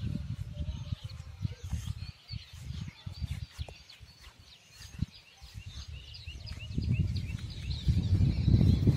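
Small birds chirping in many quick, high calls, over gusts of wind buffeting the microphone; the wind rumble grows much stronger in the last couple of seconds and becomes the loudest sound.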